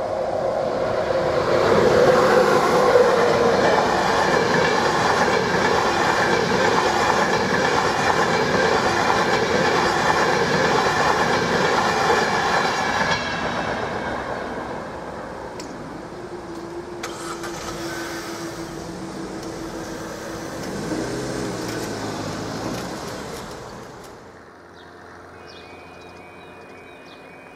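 A train passing over the level crossing at speed: a loud, steady rush of wheels on rail with clickety-clack for about thirteen seconds, then fading away. Near the end a faint, high alarm tone sounds as the crossing's warning lights come on.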